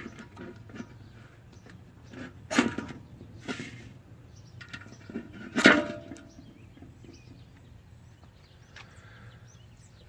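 Firefly mini ferro rod, seated in a Swiss Army Knife's toothpick slot, being scraped to throw sparks: a run of short rasping strikes, the three loudest about two and a half, three and a half and five and a half seconds in, with lighter scrapes between. The rod is awkward to strike this way.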